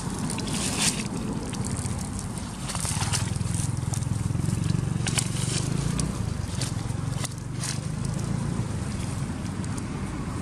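Outdoor wind rumbling on the microphone, with scattered crunches and rustles of dry fallen leaves a few times.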